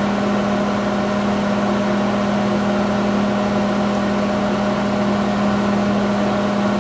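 A 1200-watt microwave oven running at full power: a steady hum with a strong low drone, unchanging throughout.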